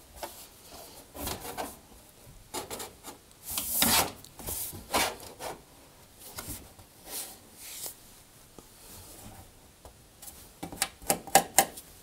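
A heater cover rubbing and scraping against the tumble dryer's metal back panel as it is shifted about to line up its screw holes, in a series of short scrapes. A quick run of small taps comes about a second before the end.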